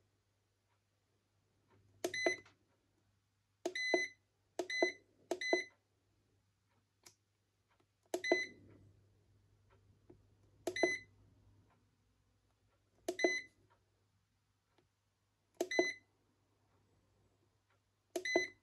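Turejo foot spa massager's control panel beeping as its buttons are pressed to change the settings shown on the display: nine short, identical beeps at irregular intervals, over a faint steady low hum.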